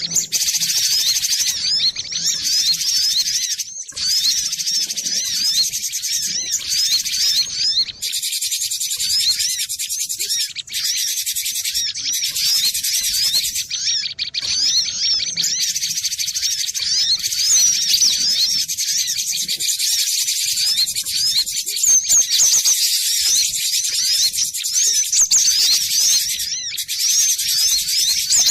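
Cinereous tit (gelatik batu) calling, a dense, continuous stream of quick high chirps with a few brief breaks.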